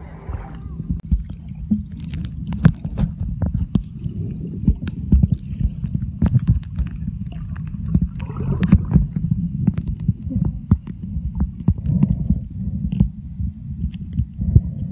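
Muffled underwater sound from a submerged camera in the sea: a steady low rumble of moving water with irregular clicks and knocks.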